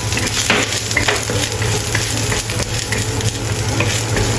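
Minced ginger sizzling in hot oil in a wok, with a wooden spatula scraping and tapping against the pan as it is stirred.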